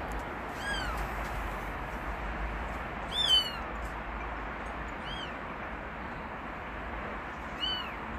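Newborn kitten mewing: four short, high-pitched mews a couple of seconds apart, each rising and falling in pitch, the second the loudest.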